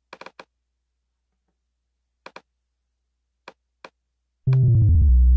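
A few quiet mouse clicks, then about four and a half seconds in a loud synth bass note from Maschine's 'Adrenaline' sound starts. Its pitch dips and rises again. The note is triggered by a MIDI note sent from an Ableton Live MIDI track.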